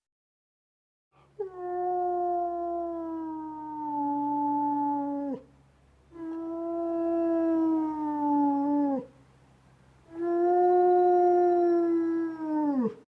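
Wolf howling: three long howls, each held at a near-steady pitch that sags slightly and then drops off sharply at the end, with silence between them.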